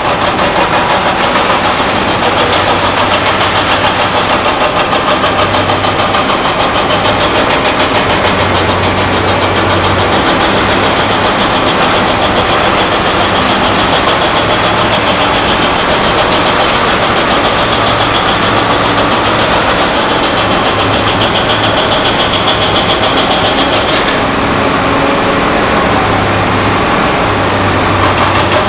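Diesel engine noise of heavy construction machinery, chiefly a Liebherr R962 crawler excavator working as it digs and swings its bucket. The noise is steady and loud, with a low hum that comes and goes.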